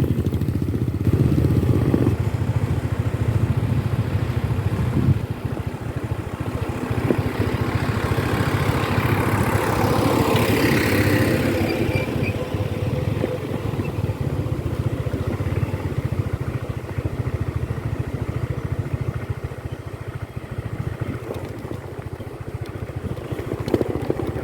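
Motor vehicle engine running steadily, with a louder passing swell about ten seconds in.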